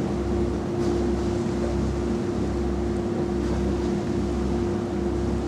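Steady mechanical hum aboard a cruise ship, one constant tone, with wind and sea noise beneath it.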